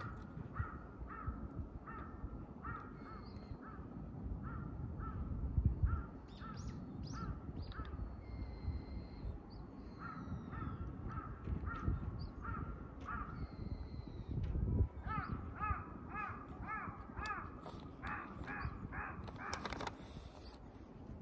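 Crows cawing in long series of short calls, about two or three a second, the loudest run coming near the end, with a few thin higher bird calls in between, over a low background rumble.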